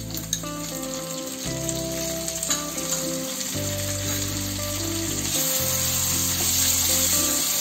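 Chopped tomato sizzling in hot oil with diced potatoes in a coated wok as it is stirred with a spatula, with a few light scrapes; the sizzle grows louder about two thirds of the way through. Soft background music plays under it.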